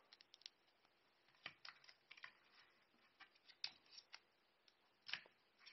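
Near silence broken by a few faint, sharp clicks and rustles of small items being handled on a desk.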